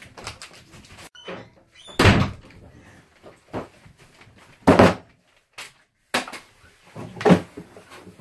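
Handling knocks and thumps: three loud bangs, about two, five and seven seconds in, with smaller knocks between, as a large cardboard toy-blaster box is fetched and set down on a table.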